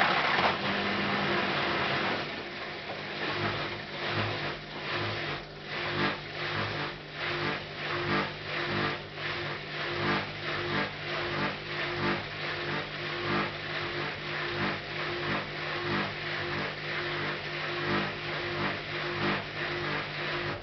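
Hotpoint NSWM 843C washing machine running on its rinse and spin programme. It starts suddenly with a hiss for about two seconds, then settles into a steady hum with regular knocks about twice a second as the drum turns.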